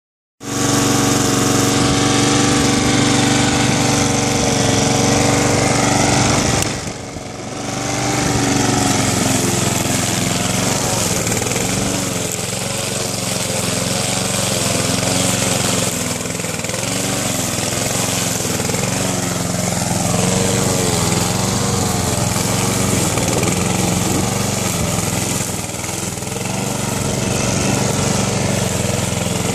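Husqvarna WB53SE rotary lawn mower's petrol engine running as it cuts thick, overgrown grass. Its speed wavers up and down under the load. About seven seconds in, the sound drops away briefly and then picks back up.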